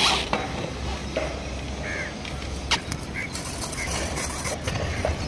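Light clicks and knocks as a spin-on diesel filter canister is handled and set onto its engine mount, over a steady low hum, with a few short bird calls.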